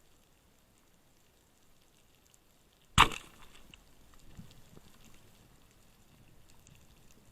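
Speargun fired underwater: one sharp, loud crack about three seconds in that trails off quickly, over faint underwater crackling.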